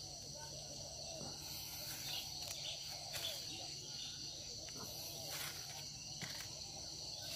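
Steady high-pitched insect chorus, with a few soft rustles and scrapes from hands digging in loose soil.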